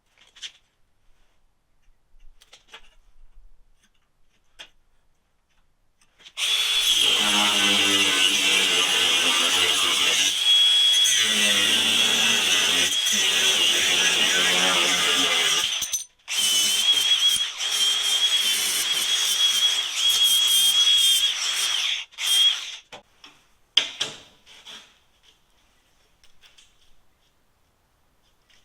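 A cut-off tool's zip disc cutting through steel plate: the high whine starts about six seconds in and runs loud and steady for about sixteen seconds, dropping out briefly once partway, before stopping, followed by a few light knocks.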